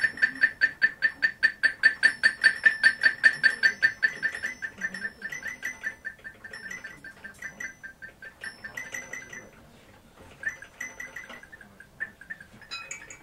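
Live noise music: a high-pitched beep repeated rapidly, several times a second, that fades after about four seconds into sparse, irregular high chirps and bleeps.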